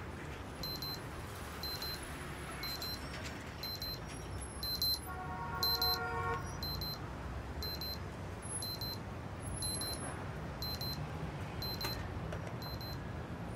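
Alarm clock beeping: short high-pitched electronic beeps repeating at an even pace over a low room hum. About five seconds in, a brief lower electronic tone sounds for about a second.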